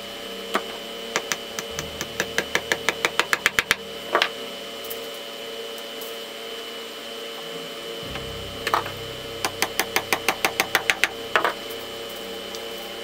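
Small hammer tapping pins into a model ship's wooden deck: two quick runs of light, rapid taps, about seven a second, with a few single knocks between them.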